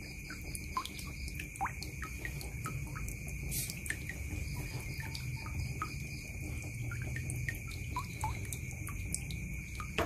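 Water dripping and trickling from a tap into a plastic basin of water: an irregular patter of small plinks and plops, several a second. A steady high tone and a low rumble run underneath.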